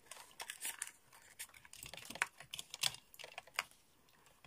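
Irregular small clicks and taps from hands fitting cardboard insulation into the empty casing of a PP9 battery, with the cardboard and the plastic battery holders rubbing and knocking against it.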